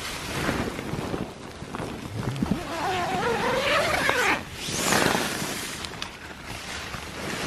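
Rustling and brushing of nylon tent fabric close to the microphone as the camera is handled inside the tent, with a wavering pitched sound rising midway and a louder rush of rustling about five seconds in.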